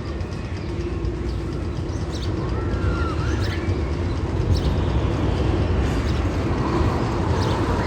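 Steady low rumble like a train or heavy vehicle running, growing slightly louder, with a few short squealing glides about halfway through.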